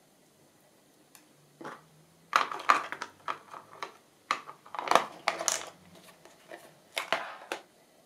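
Craft supplies being handled on a desk: light clattering and rustling in three bursts, starting about two, four and seven seconds in.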